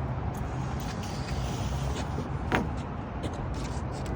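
Steady low rumble, with a single sharp click about two and a half seconds in.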